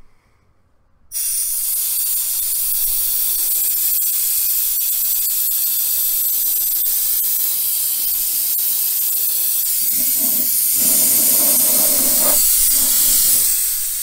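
Pressurised nitrogen venting from a refrigerant line set through the gauge manifold's low side and hose: a loud, steady, high-pitched hiss that starts about a second in, bleeding off the roughly 300 psig test pressure. The hiss turns fuller and lower for a couple of seconds near the end.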